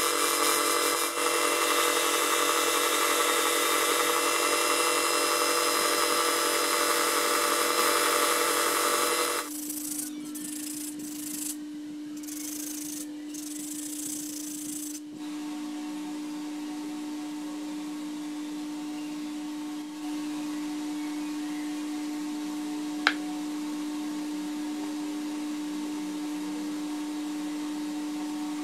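Bench belt-and-disc sander running with a piece of wood pressed against the sanding disc, a loud hissing whine with the rub of wood on abrasive. About nine seconds in the sanding gives way to a quieter steady hum, with a single sharp click near the end.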